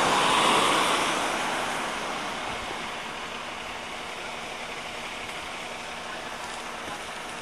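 A car driving past on the road, its tyre and engine noise loudest at the start and fading away over the first few seconds, leaving a steady hiss.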